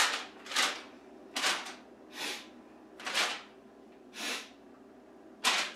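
A sheet of printer paper rustling and flapping as it is handled, in a string of about nine short, sharp rustles at an uneven pace.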